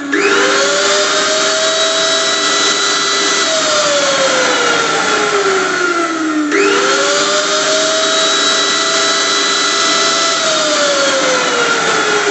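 Electric blender motor running in cycles: it starts suddenly and its whine climbs and holds, then falls slowly over about three seconds, then starts again about six and a half seconds in.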